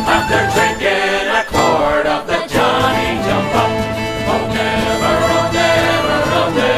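Irish folk band playing an instrumental break together at a brisk, steady rhythm: fiddle, uilleann pipes and tin whistles carry the melody over strummed acoustic guitars and banjo.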